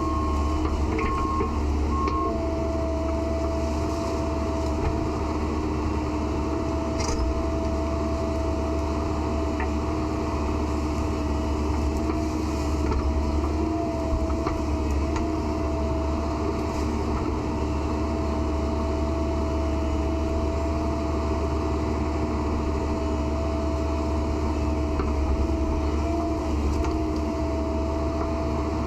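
A heavy machine's engine running steadily, with a constant high whine over it. Three short beeps sound in the first two seconds.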